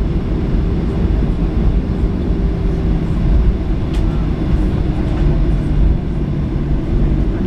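Cabin noise of a Boeing 737-500 taxiing: a steady rumble from its CFM56 engines and the airframe rolling on the ground, with a faint hum of steady tones. A single small click about four seconds in.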